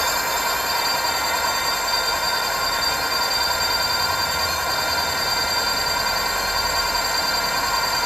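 A 48V 1000W brushless gearless rear hub motor spinning its unloaded 24-inch wheel at a steady speed. It makes a steady whine made of several fixed high tones, over a low hum.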